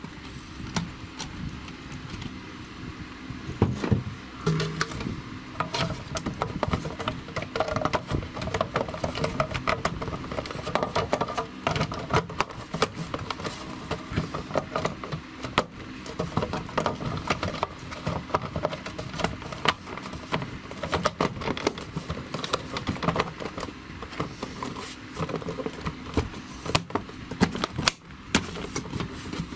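Irregular plastic clicks, taps and knocks as the tester's circuit board and black plastic case halves are handled and pushed back together during reassembly.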